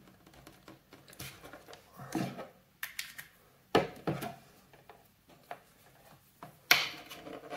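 Scattered clicks and light knocks of cables and small gadgets being handled on a wooden desk, with the sharpest knock near the end.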